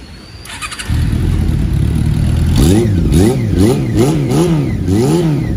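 Honda CB400 café racer motorcycle engine running at a steady idle, then blipped by the throttle about six times in quick succession, the pitch rising and falling about twice a second.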